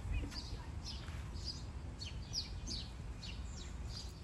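Small birds chirping: short, high, falling chirps repeated about three times a second, over a steady low rumble.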